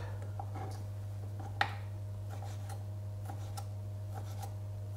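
A kitchen knife dicing ham on a wooden cutting board: light, even taps of the blade on the board, about three a second, with one sharper knock about a second and a half in, over a steady low hum.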